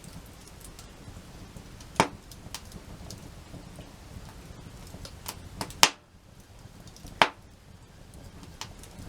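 A handful of sharp wooden cracks and knocks, the loudest about two seconds in, near six seconds and about seven seconds in, over a low steady background.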